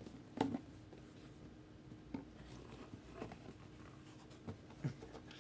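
Faint handling noises: a few scattered soft taps and rustles from cardboard card boxes and packaging being handled, the loudest about half a second in.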